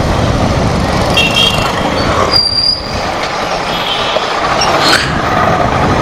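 Steady riding noise on a Kawasaki Ninja 650 parallel-twin motorcycle at low speed: a continuous rumble of engine, tyres and wind on the microphone, with a few brief faint high-pitched tones from around it.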